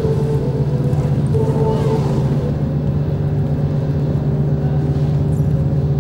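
Droning ambient music soundtrack: a steady low drone with a few higher tones held over it, and no beat.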